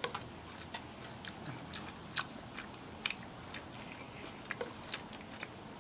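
Faint, irregular small clicks and ticks, a few every second.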